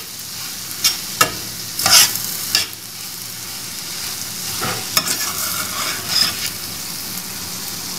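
Mash (urad) dal being stirred into sizzling fried masala in a stainless steel pan: a steady frying sizzle, with a metal spatula scraping and knocking against the pan several times, loudest about two seconds in.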